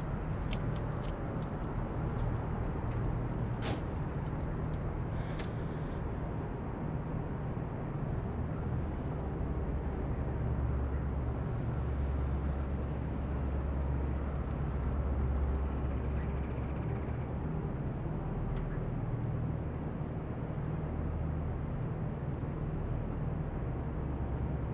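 Steady low outdoor rumble, growing a little louder in the middle, with a steady high-pitched hum over it and a few light clicks in the first few seconds.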